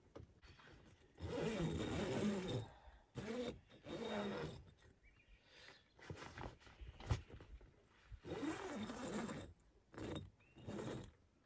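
Rooftop tent's fabric door being zipped shut and the tent fabric rustling as someone moves inside, in several short bursts, with a sharp click about seven seconds in.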